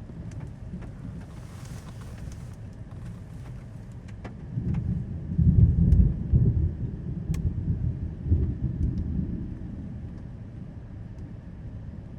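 Thunder rumbling, swelling about four seconds in and rolling on for several seconds before dying back, over a steady low background with scattered light ticks.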